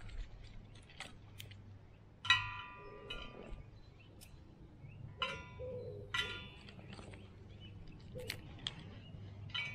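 A bird calling four times, short harsh calls with many overtones, the first and loudest a little over two seconds in. Scattered light clicks between the calls.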